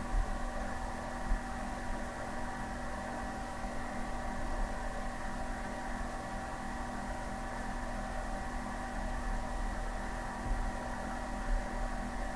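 Steady electrical hum with a faint hiss, holding several constant tones throughout, with a few soft low knocks here and there.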